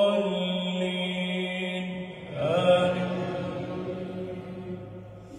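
A man's voice chanting Quran recitation through a mosque microphone, holding a long drawn-out note at the close of Al-Fatiha. A second long chanted note starts about two seconds in, rising in pitch and then fading away.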